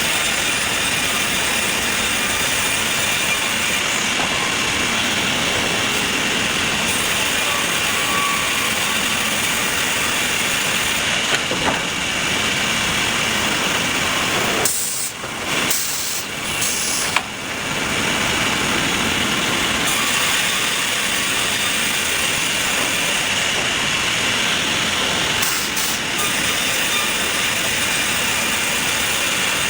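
Sawmill machinery running with a steady, loud hissing noise, broken by a few abrupt short cuts about halfway through.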